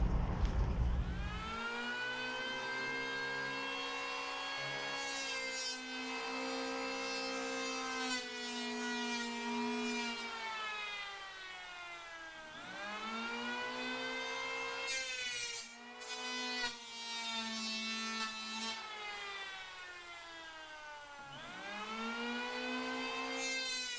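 Electric hand planer shaving down a high spot on a wooden hatch coaming: a motor whine that sags slowly in pitch as the blades bite and jumps back up twice as the load comes off. A low rumble fills the first second or so before the planer starts.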